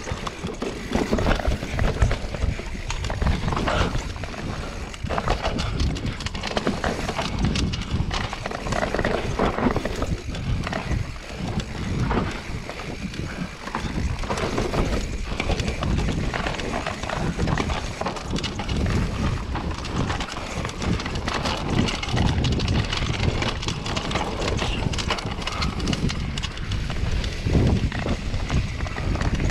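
Enduro mountain bike riding down a rocky dirt singletrack: tyres rolling and crunching over dirt and stones, with the bike rattling and knocking in an irregular clatter over the bumps.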